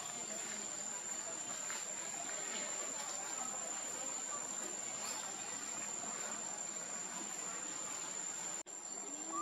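Insects keeping up a steady, high-pitched drone over a faint outdoor hiss. The drone cuts out for an instant near the end.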